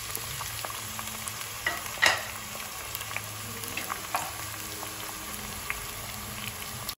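Thinly sliced red onions sizzling in hot oil in a pan, just added for browning: a steady hiss with scattered crackles and pops, one louder crack about two seconds in.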